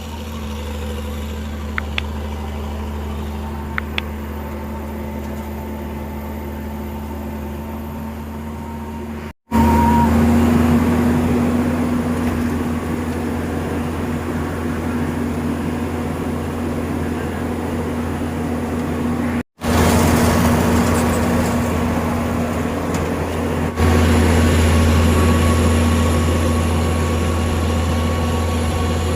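Heavy diesel engines of road-paving machinery running steadily with a low drone. There are two short clicks a couple of seconds in. The sound cuts out and resumes twice, about 9 and 19 seconds in, and gets louder about 24 seconds in.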